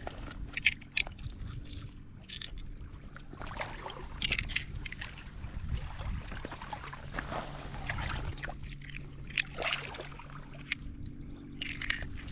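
Loose seashells crunching and clinking in irregular strokes, over a low steady hum.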